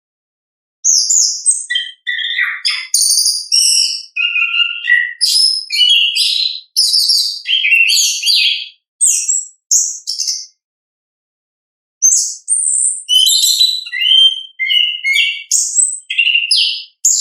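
Chestnut-capped thrush (anis kembang) singing its full varied song: fast runs of whistled, chattering and trilled notes, pausing for about a second and a half near the middle before starting again.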